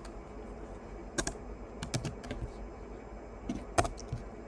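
Computer keyboard keystrokes: a few scattered clicks in small clusters, about a second in, around two seconds and again just before four seconds, as a line of code is entered.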